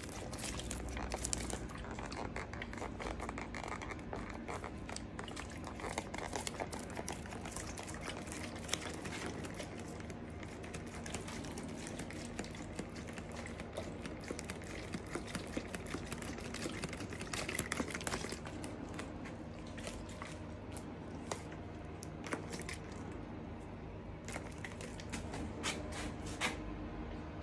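Irregular squishing, crinkling and small clicks of epoxy resin work: a squeeze bottle dispensing white resin, and plastic drop sheeting being handled, over a steady low hum.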